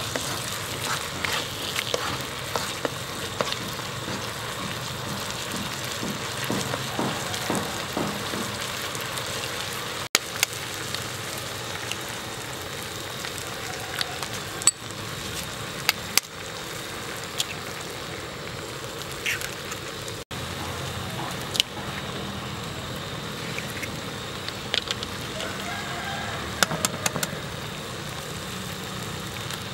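Diced potato, tomato and onion frying in a nonstick pan: a steady sizzle, with scattered sharp clicks and scrapes of utensils against the pan as the mixture is stirred and eggs are added.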